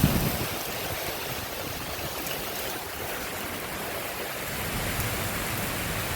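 Wind-driven rain of a severe thunderstorm making a steady, even hiss. There is a brief low buffet of wind on the microphone right at the start.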